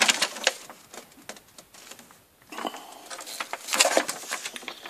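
Folded paper sheets rustling and crinkling as they are handled, in quick crisp strokes, with a brief near-silent pause about halfway through before the rustling starts again.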